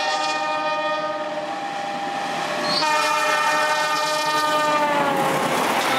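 Diesel locomotive's multi-tone air horn sounding long blasts as the train approaches and passes. A new, louder blast starts about halfway, and its pitch drops a second or so before the end as the locomotive goes by, while the rushing rumble of the train grows underneath.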